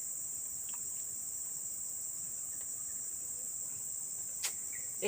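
Steady high-pitched chorus of insects, with one sharp click about four and a half seconds in.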